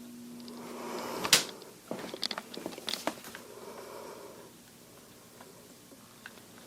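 Electric fan motor humming steadily, then a sharp switch click about a second in as it is turned off, followed by a few lighter clicks and a fading sound as it spins down.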